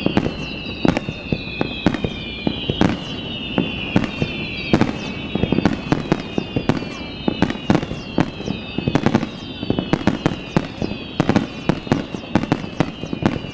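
Aerial fireworks going off in rapid succession: many sharp bangs, several a second, with high whistling tones that fall slowly in pitch layered over them.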